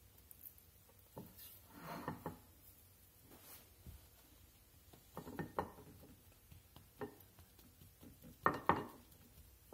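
A hand pressing and patting a battered cube steak into seasoned flour in a ceramic bowl: faint scattered rustles and soft knocks, in a few clusters, the loudest near the end.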